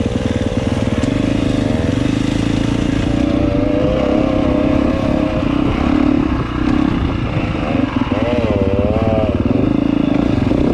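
Dirt bike engine running under throttle while riding off-road. Its pitch climbs over the first couple of seconds, holds steady, then wavers quickly up and down near the end as the throttle is worked over rough ground.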